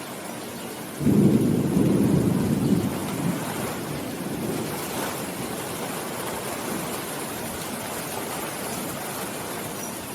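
Steady rainfall with a roll of thunder breaking in about a second in, a low rumble that is loudest at first and dies away over a few seconds under the rain.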